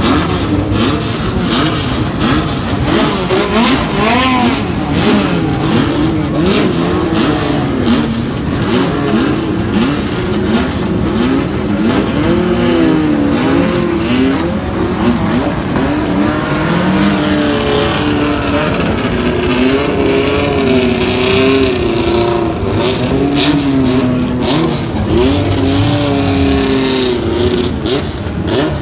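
Several historic Lotus racing car engines running together, repeatedly blipped and revved in overlapping rising and falling notes as the cars move off one after another.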